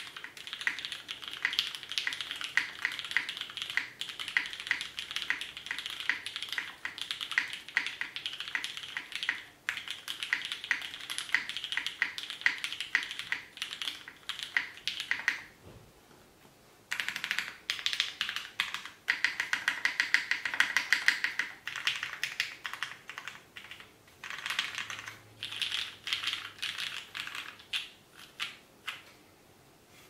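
Typing on a PC Kohaku gasket-mounted mechanical keyboard with an aluminium plate, no foam, Wyse vintage MX Black linear switches lubed with GHv4 and GMK keycaps: a fast, steady run of key clacks. It pauses briefly about halfway, resumes, and near the end comes in shorter bursts.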